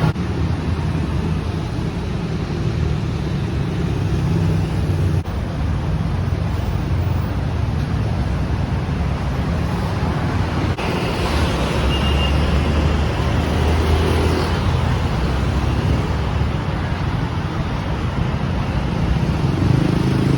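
Road traffic noise: a steady rumble of passing vehicles that changes abruptly twice, as the street recordings cut from one to another.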